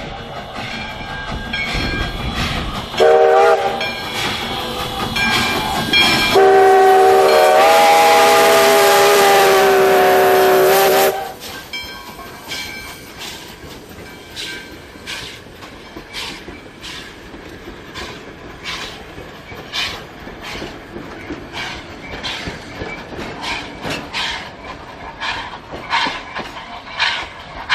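A locomotive sounds a short blast and then a long blast of about four seconds, several notes at once. After it stops, the train's wheels click steadily over the rail joints as the cars roll by.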